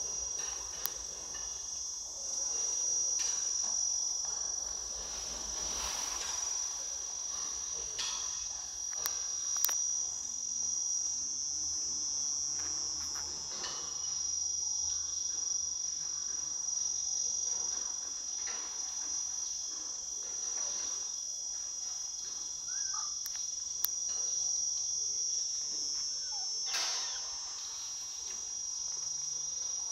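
Steady, high-pitched drone of an insect chorus in the forest, unbroken throughout, with a few faint scattered clicks.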